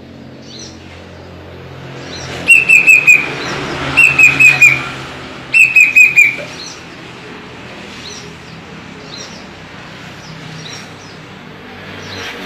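Kedasih cuckoo calling: three short bursts of about four quick, falling whistled notes each, roughly a second and a half apart. Faint high chirps and a low steady hum lie underneath.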